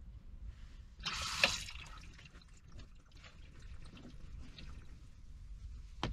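A short splash of water about a second in, then faint small clicks and handling noises, with one sharp click near the end.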